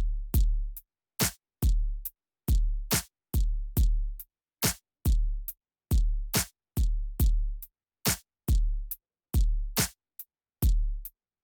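Electronic background music: a drum-machine beat of deep, booming kicks and sharp snare or clap hits, chopped by short silent gaps.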